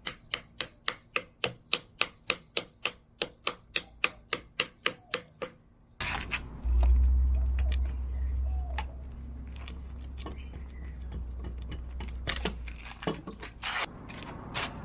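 A rapid, even run of sharp knocks, about four a second, for some five seconds; after a sudden break a low rumble sets in for about six seconds, with scattered knocks over it.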